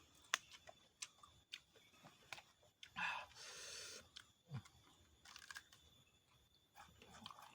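Faint, scattered crunching and chewing of raw vegetables, with a louder crackling crunch about three seconds in.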